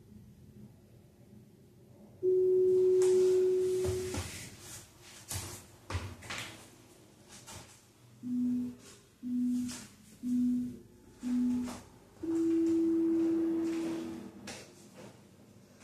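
Workout interval timer beeping: one long beep ends the exercise, four short, lower countdown beeps follow one second apart, then another long beep starts the next exercise. Between them there are a few soft thuds and shuffles of movement on the wooden floor.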